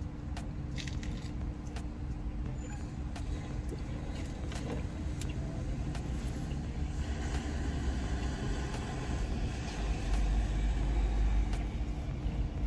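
A person chewing a bite of burger, with scattered small clicks, over a steady low hum and rumble that grows louder about ten seconds in.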